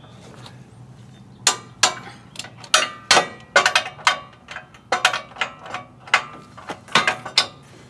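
Ratcheting torque wrench with a 7/8-inch deep-well socket tightening a brush-guard bolt toward 100 foot-pounds. It gives a run of sharp metallic clicks at uneven spacing, starting about a second and a half in.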